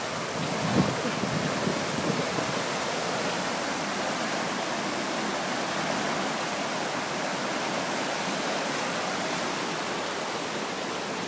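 Fast-flowing river rapids rushing over rocks: a steady, even wash of white water.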